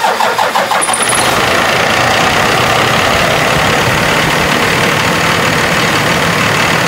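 Cummins ISX inline-six diesel truck engine firing up, uneven for the first second or so and then settling into a loud, steady idle: its first start after an oil and filter change.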